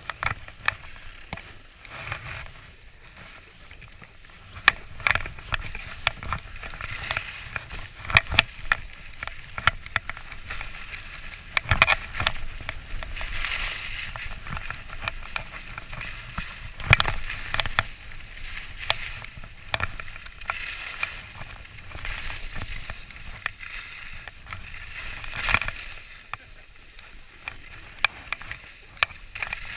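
Skis sliding and carving down packed snow: a continuous scraping hiss of the edges, broken by scattered sharp clicks and knocks.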